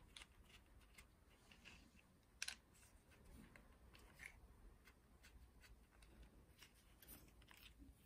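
Near silence with faint, scattered clicks and rubbing from a compact camera and its plastic shooting grip being handled and screwed together, and one sharper click about two and a half seconds in.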